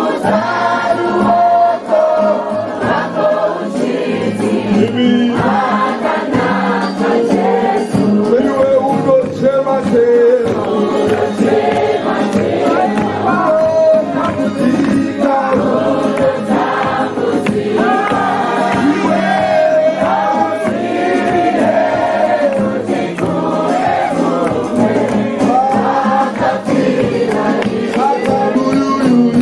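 A group of young people singing a gospel hymn together in choir style, many voices carrying the melody over steady low notes.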